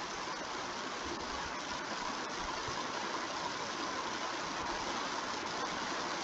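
Steady, even background hiss of room noise, with no speech and no distinct events.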